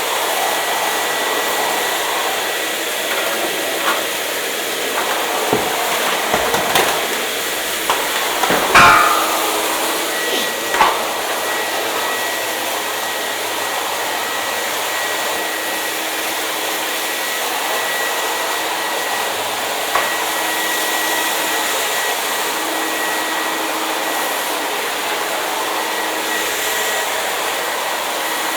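Hair dryer running steadily: an even rush of air with a faint steady whine. A handful of knocks and clicks break in during the first third, the loudest about nine seconds in, with one more about twenty seconds in.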